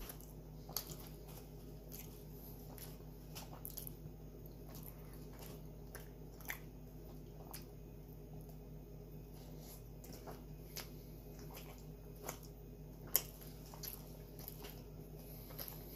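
A person chewing and biting into a tuna sandwich: faint wet mouth clicks and smacks at irregular intervals, with one sharper click about thirteen seconds in.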